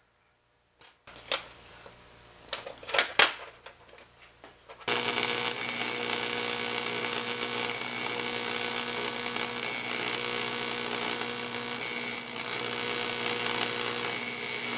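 A few light clicks and knocks, then about five seconds in a TIG welding arc strikes and runs steadily: an even hiss with a steady buzzing hum.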